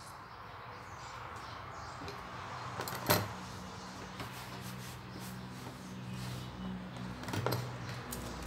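Handling and wiping a plastic cutting board: a sharp knock about three seconds in and a smaller one near the end, over a low steady hum.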